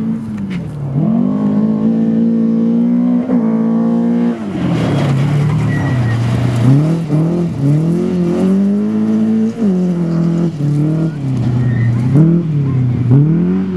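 Rally car engine revving hard on gravel, its pitch climbing and dropping sharply again and again with gear changes and lifts off the throttle. A rush of gravel and tyre noise comes about five seconds in as the car passes close.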